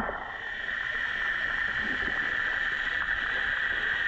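Steady, muffled underwater noise from a camera submerged in a swimming pool, with a constant hiss.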